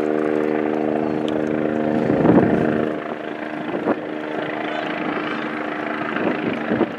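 Steady engine drone holding one pitch, over a haze of wind noise on the microphone, with a few brief knocks and bursts about two, four and near seven seconds in.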